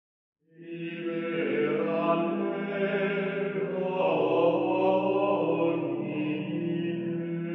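Slow sacred chant by low voices, long held notes over a steady drone, coming in about half a second in.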